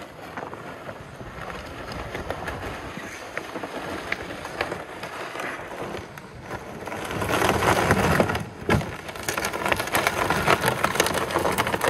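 Boots crunching on packed snow and a loaded plastic pull-sled scraping along the snowy road, a steady rough scraping with small scattered crunches that grows louder about seven seconds in.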